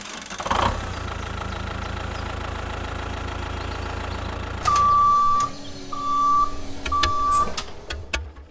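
A tractor engine starts about half a second in and idles steadily. Then a horn sounds three beeps, the first longest, as the engine keeps running.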